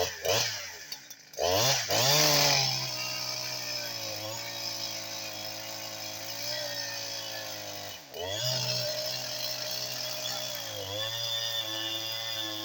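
Two-stroke Husqvarna 372 clone chainsaw revving up and then held down at a steady, lower engine speed while cutting. It drops off briefly about eight seconds in and picks up into the cut again. The owner says the saw needs another tune.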